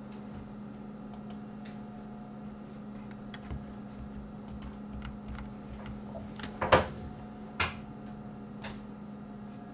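Computer mouse clicks and keyboard key presses, scattered and faint, with two louder key clacks about seven seconds in. A steady low electrical hum runs underneath.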